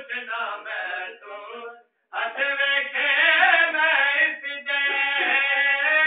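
A man's voice reciting devotional verses to a melody, in sung phrases with long held notes. It breaks off briefly about two seconds in.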